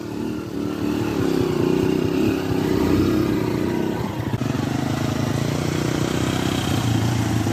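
Small street motorcycle engines running at low revs as a bike rides off through mud. Near the end another motorcycle's engine grows louder as it comes closer.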